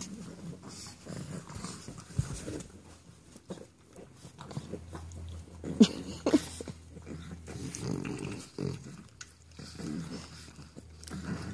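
Pug puppies making small play noises as they climb and nuzzle, with two brief sharp squeals about six seconds in, the loudest sounds.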